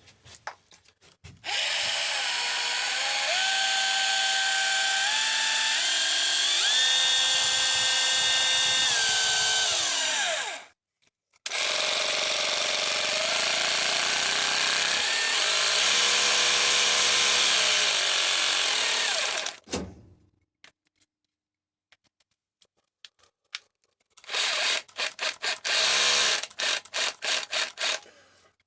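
Electric percussion drill running in two long runs of about nine and eight seconds, its motor whine stepping up and down in pitch as the speed changes. Near the end it is pulsed in a rapid series of short bursts.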